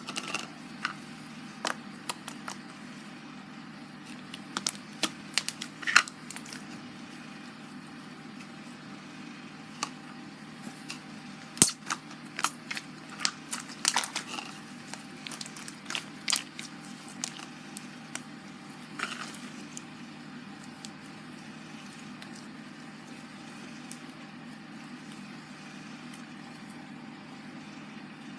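Glue slime being squished and worked by hand: scattered sticky clicks and crackling pops, coming thickly for about the first twenty seconds and then stopping, over a steady low hum.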